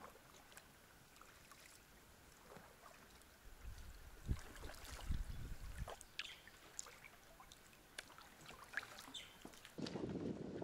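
Quiet kayak paddling on calm water: paddle blades dipping and dripping, with scattered light drips and a few soft low thumps in the middle. Near the end a louder, even rushing noise takes over.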